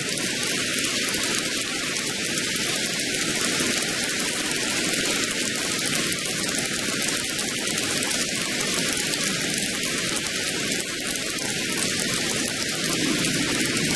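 Steady applause from a group of men clapping their hands.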